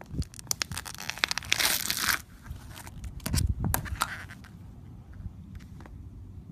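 Crunchy slime being worked by hand, giving off rapid crackling pops. A dense, loud run of crackles fills the first two seconds, a second burst comes a little past the middle, and then only scattered pops.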